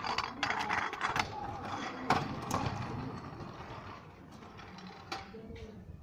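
Stunt scooter rolling over asphalt, its wheels and deck rattling, with a few sharp clacks; it grows fainter from about four seconds in as it moves away.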